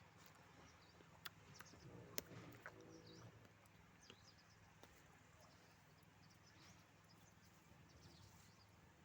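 Near silence: faint outdoor ambience with scattered faint high bird chirps and a couple of light clicks in the first few seconds.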